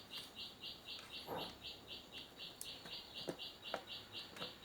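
Steady high-pitched chirping, about five short pulses a second, with a few faint clicks over it.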